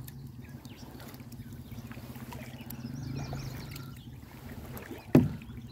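Small boat's motor running with a steady low hum, with a single sharp knock against the boat about five seconds in.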